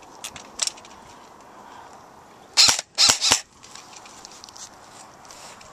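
Airsoft rifle firing three quick, sharp shots within under a second, about two and a half seconds in, with a few faint ticks of shots before them.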